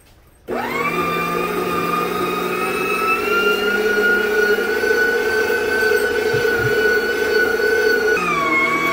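An electric meat grinder switches on about half a second in. Its motor spins up quickly to a steady whine while it grinds chunks of half-frozen pork, and the pitch dips slightly near the end.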